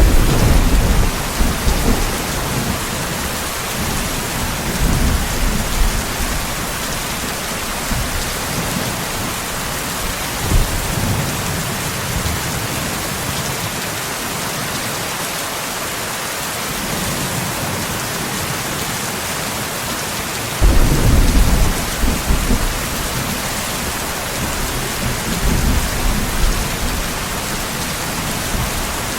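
Steady heavy rain with rolling thunder. The thunder comes in low rumbles at the start and again several times, the strongest breaking in suddenly about two-thirds of the way through.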